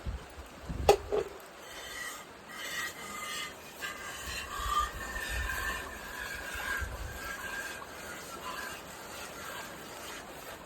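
Water buffalo being hand-milked: uneven rasping squirts of milk into a pail, with a sharp knock about a second in.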